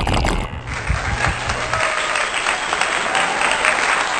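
Close-up chewing of a crunchy lettuce-and-bacon salad: a dense, steady crackle of crunching.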